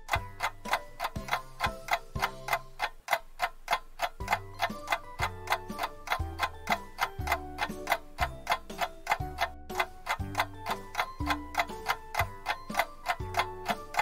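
Countdown-timer sound effect: a steady clock-like ticking, about four ticks a second, over a simple looping tune with a low bass note that changes about once a second.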